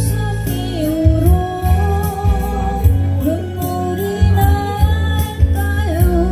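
Korean ballad song on a backing track: a held, gliding melody line over a steady bass beat.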